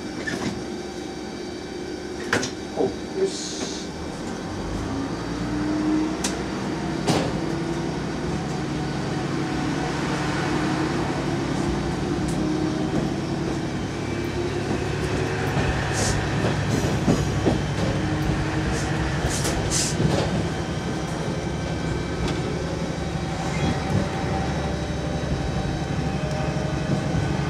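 Sanriku Railway 36-200 diesel railcar pulling away: a few knocks about two to three seconds in, then the diesel engine comes up to power with a hum whose pitch rises as the train gathers speed. Wheels click over rail joints and points.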